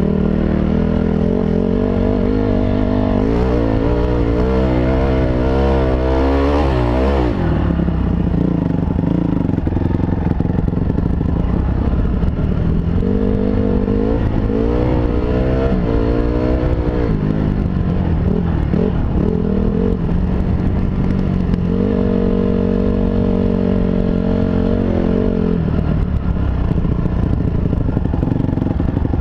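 2005 Honda CRF250R's four-stroke single-cylinder engine under way on a rough dirt trail, its pitch rising and falling as the throttle is worked, in swells during the first few seconds and again in the middle, then held steady for a few seconds near the end.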